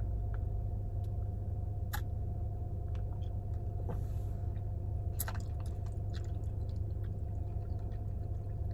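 Soft chewing of tapioca boba pearls, with a few sharp mouth clicks, over a steady low hum.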